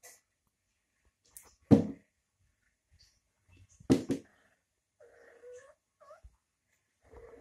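A cat pouncing on a laminate floor, with two loud thumps, one a little under two seconds in and one about four seconds in. These are followed by a few faint, short cries that glide up and down near the end.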